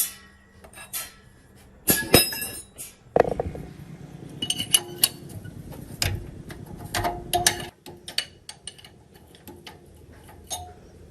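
Metal tools and engine parts clinking and knocking against each other as they are handled, with short ringing notes after some strikes and a cluster of loud knocks about two seconds in.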